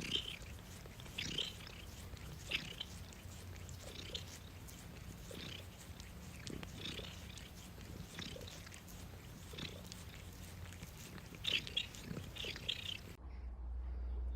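Faint cat sounds: short soft noises repeating about every second and a half over a low steady hum. The background changes abruptly near the end.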